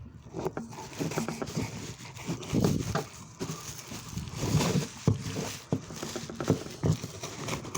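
Irregular knocks, clicks and scrapes of a knife working at a used oil filter's metal can and pleated element to tear it open.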